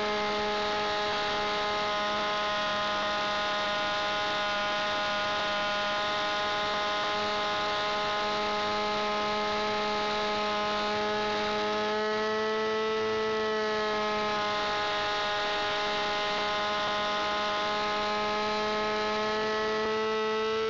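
Small combustion engine of a radio-controlled aerobatic model plane, heard from on board, running steadily at high revs as a whine with many overtones. The pitch rises slightly about twelve seconds in, eases back, and rises again near the end.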